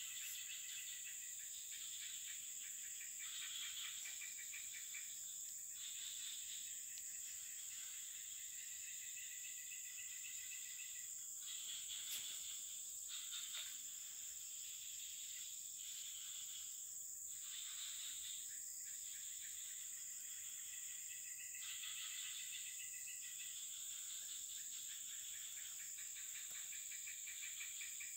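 Insects chirring: a steady high-pitched drone throughout, with other insect trills at a lower pitch that swell and fade every few seconds.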